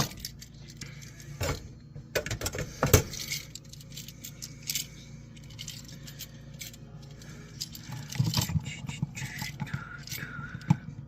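Scattered metallic clicks, taps and light clinks of small hardware and hand tools being handled while wires are bent straight and fitted, with a few louder knocks near the start and about three seconds in.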